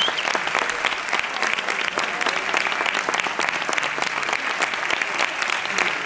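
Theatre audience applauding: dense, steady clapping of many hands.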